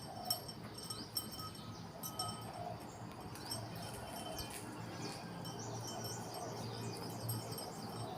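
A small bell worn by a feeding pet jingles faintly and irregularly as the animal eats, a sign that it is busy at its food.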